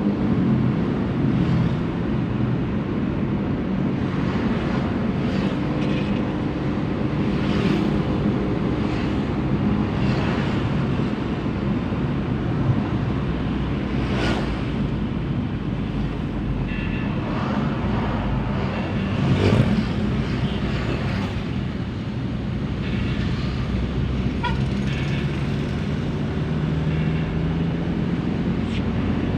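Suzuki APV minivan engine running continuously, its pitch mostly steady with small rises and falls, plus a couple of brief sharp noises partway through.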